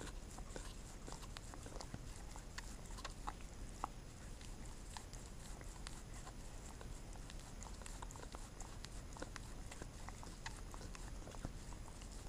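Pembroke Welsh corgi licking a person's fingertips up close: a fast, irregular run of small wet tongue clicks and smacks.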